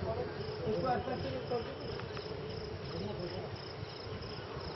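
Crickets chirping at night: a high, evenly repeating chirp a few times a second, over a low murmur.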